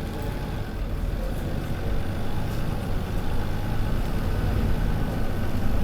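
Volvo B7RLE bus's six-cylinder diesel engine running steadily with a faint high whistle from its turbocharger, growing a little louder about two seconds in.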